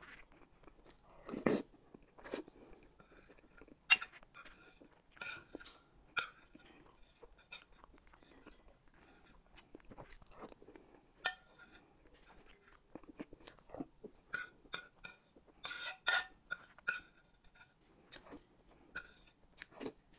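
Close-miked wet chewing and lip smacks of someone eating a soft, creamy dessert: irregular short smacks and clicks, a few louder ones about a second and a half in, at four seconds, and in a cluster around sixteen seconds.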